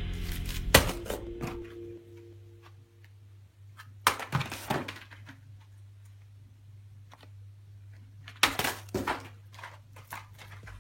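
Music fades out in the first two seconds, leaving a faint low hum broken by groups of sharp clicks and knocks, about four seconds in and again about eight and a half seconds in.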